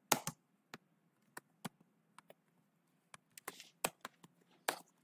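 Computer keyboard keystrokes: about a dozen irregular clicks as code is typed.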